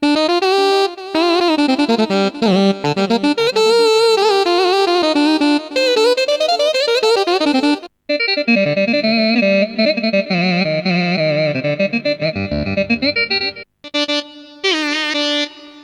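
Korg Krome keyboard playing ornamented Balkan/Turkish-style melody lines on sampled ethnic patches. One phrase runs about eight seconds, breaks off, and a second phrase in a different sound follows. Shorter snippets come near the end.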